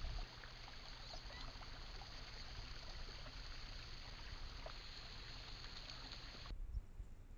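Faint outdoor background through a trail camera's microphone: a steady hiss with a low rumble and scattered faint ticks. The background changes abruptly about six and a half seconds in.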